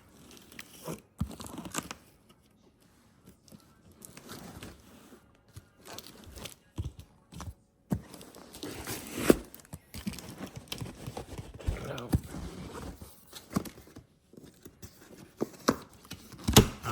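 Cardboard packaging being torn and pulled open by hand, with irregular tearing and crinkling and a few sharp louder snaps, the loudest about nine seconds in and near the end.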